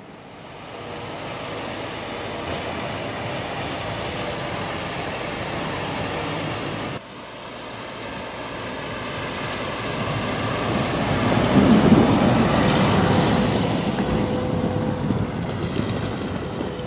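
Engines of snow-clearing heavy machinery, a tractor and a backhoe loader, running as they push snow, with a rough rushing noise. The sound drops suddenly about seven seconds in, then builds to its loudest rumble around twelve seconds in.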